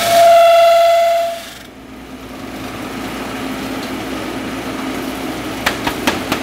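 Grizzly drum sander running. A loud, high, steady whine for the first second and a half stops abruptly, then the machine runs on with a quieter steady hum. A few sharp clicks come near the end.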